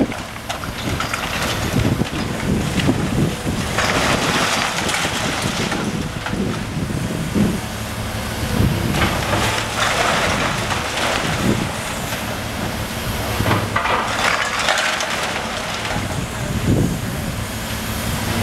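High-reach demolition excavator working on a brick building: its diesel engine runs steadily while brick and debris crunch and tumble, with several stretches of louder rustling noise.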